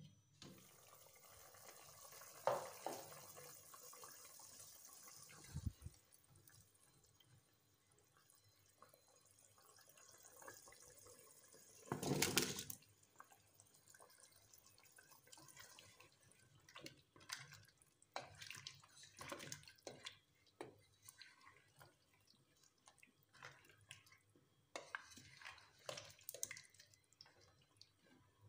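Meat curry simmering in a covered pot on low heat, with a faint steady hiss for the first few seconds. A short, louder clatter comes about twelve seconds in. After that, a run of small clicks and liquid sloshes follows as turnip chunks are stirred into the gravy with a spatula.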